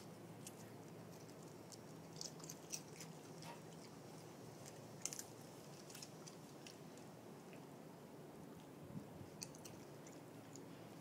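Raccoon chewing potato chips: faint, crisp crunches that come in small clusters with quiet gaps between them.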